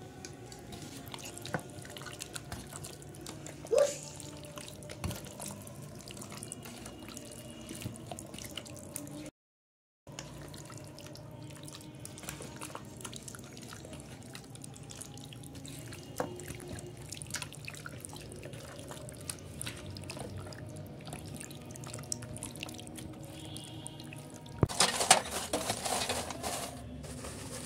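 Hands squishing and turning chicken pieces in a wet marinade in a steel bowl: soft wet squelches with scattered small clicks over a steady low hum. Near the end comes a louder stretch of rustling and clattering as charcoal lumps are handled in a metal grill box.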